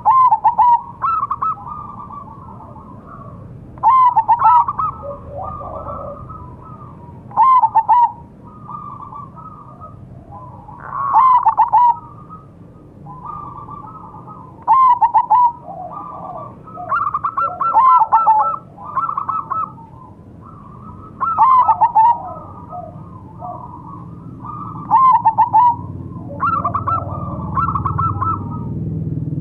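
Zebra dove (perkutut) of the 'mega mendung' variety cooing its rapid staccato song, loud phrases repeated about every three to four seconds with softer notes between.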